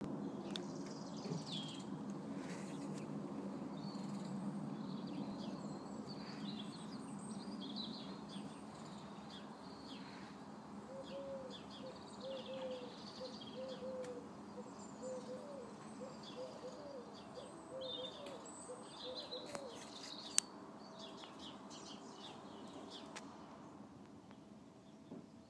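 Electric opener of a Hormann sectional garage door running as the door rises, a steady hum that fades as the door nears the top and stops near the end. Birds sing throughout, with a single sharp click about twenty seconds in.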